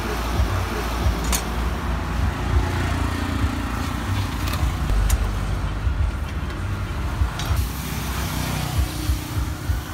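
Steady rumble of road traffic passing a roadside stall, with a few sharp, light clinks of metal kitchenware: a ladle and hopper pan.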